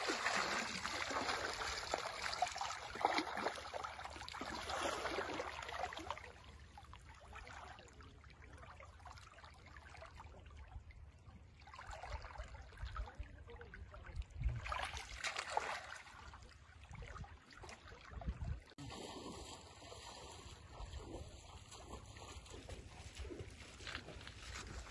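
River water splashing and sloshing around a person wading waist-deep and working his arms through the water. It is louder for the first six seconds, then fainter, with a few more bursts of splashing later on.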